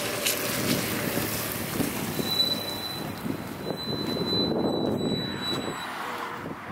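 Volvo 850 towing a loaded camping trailer rolling past on wet tarmac: tyre noise on the wet road with wind on the microphone, fading as the car pulls away near the end.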